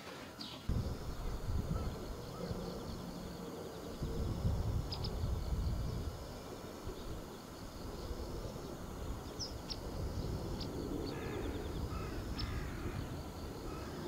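Crows cawing a few times in the second half, over faint high chirps of small birds and a low rumble through the first half.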